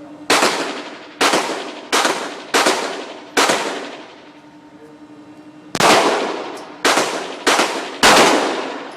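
Glock 23 pistol in .40 S&W fired in two strings: five shots about two-thirds of a second apart, a pause of about two seconds, then four more quick shots. Each shot has a long echoing tail.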